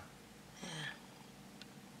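A short, quiet human vocal sound about half a second in, falling in pitch, like a brief murmur or sigh. Otherwise faint steady background.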